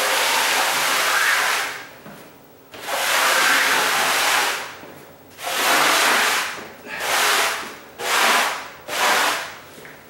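Red plastic dustpan pushed edge-down across a bare subfloor, its rubber-lipped edge scraping and gathering dust and debris. Two long scraping strokes, then four shorter, quicker ones.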